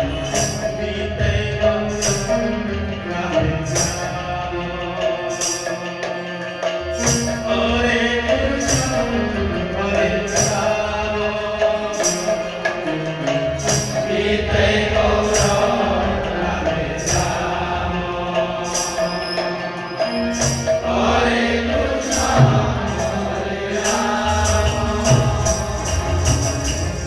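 Kirtan devotional music: small hand cymbals struck in a steady beat that quickens near the end, over drums and a held steady tone, with voices singing in chant-like phrases.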